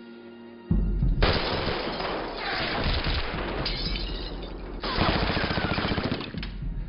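Heavy automatic gunfire in long, rapid bursts at close range, a submachine gun among it, starting about a second in, with a brief break near the five-second mark and easing off near the end.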